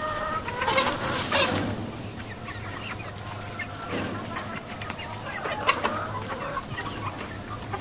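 Brown hens clucking, with scattered sharp clicks.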